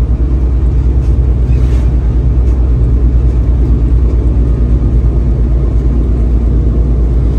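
Tractor-trailer's diesel engine running steadily while driving, heard from inside the cab: a loud, low, steady drone with a fast, even pulse.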